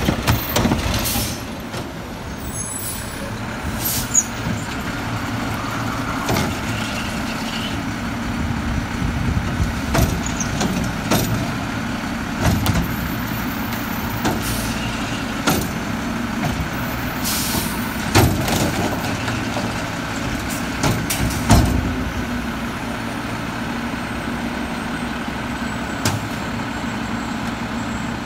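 Front-loading garbage truck with a cart-tipping carry can running steadily with a constant whine, while carts and a bulky plastic crate bang and clatter into the can many times.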